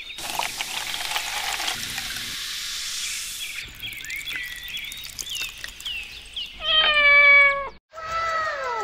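Liquid pouring for the first few seconds, with birds chirping in the background, then a domestic cat meowing twice near the end, the second meow falling in pitch; the first meow is the loudest sound.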